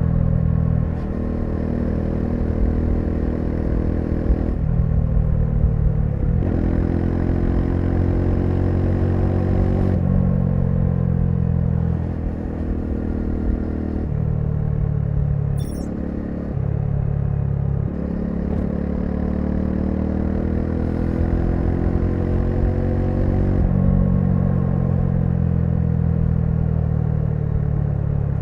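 Bajaj Dominar 400's single-cylinder engine under way, its pitch climbing and dropping again and again as the bike accelerates, shifts gear and eases off.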